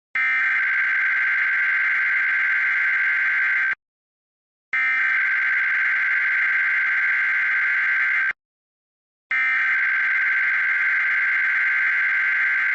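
Emergency Alert System SAME header: three bursts of rapid digital data tones, each about three and a half seconds long with a second of silence between them. This is the coded header that opens an EAS alert, sent three times over.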